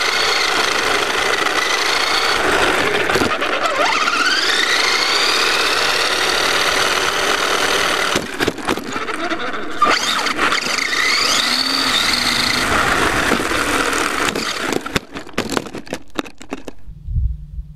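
RC buggy's drive motor and gears whining, recorded onboard, the pitch sliding up and down as it speeds up and slows, with rattling over the tarmac. Near the end a few knocks as the buggy crashes and tips over, then the whine stops and only a low rumble is left.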